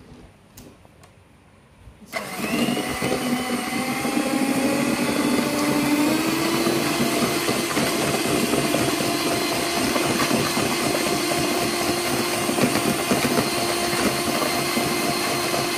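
Electric hand mixer switched on about two seconds in, beating eggs and sugar in a bowl. Its motor whine rises in pitch over the first few seconds, then runs steadily. A few light clicks come before it starts.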